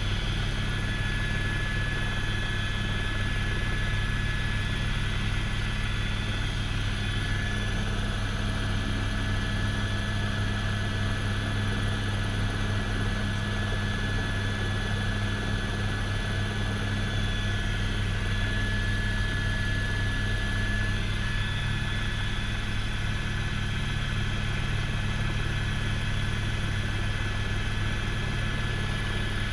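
Helicopter in flight, heard from inside the cabin: a steady low rotor and engine drone with a thin, steady high whine over it.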